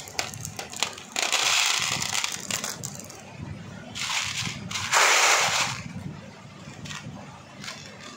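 Handfuls of small beads rattling and clicking in a clear plastic bead tray as they are poured and stirred by hand. There are three rushes of rattling, the loudest about five seconds in, with scattered clicks between.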